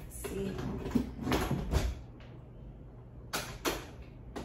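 Clicks and knocks of a whiteboard easel's tripod leg and setting knob being handled and refitted: a cluster of knocks in the first two seconds, then two sharp clicks a third of a second apart near the end.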